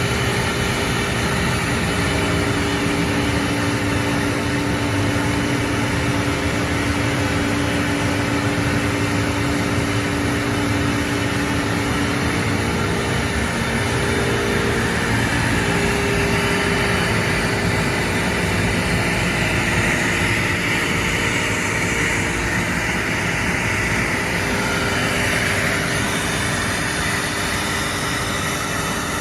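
Homemade CNC machine cutting: the spindle runs continuously under load while the stepper-driven axes whine at steady pitches that change as the moves change.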